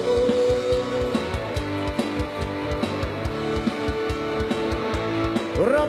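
Live lam sing band playing an instrumental passage: a plucked electric-string melody over a steady drum beat. A singing voice comes back in right at the end.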